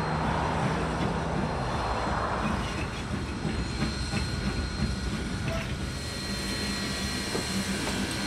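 Santa Maria Valley No. 205 steam locomotive hissing steam as it switches freight cars. A steady low hum and faint thin tones come in over the last couple of seconds.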